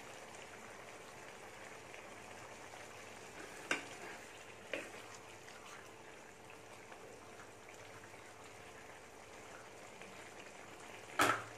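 Coconut-milk fish curry simmering in a pan with a faint, steady bubbling, while a steel spoon clinks lightly against the pan twice about four seconds in and once more, more sharply, near the end.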